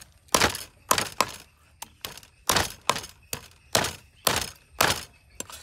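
Cleaver chopping a raw duck into pieces on a thick round wooden chopping block: about ten sharp chops, roughly two a second, with short pauses between runs.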